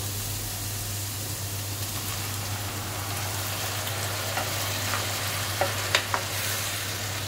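Onions frying in mustard oil, a steady sizzle, as tomato paste is added and stirred in with a wooden spatula; from about four seconds in, a few short knocks of the spatula against the pan.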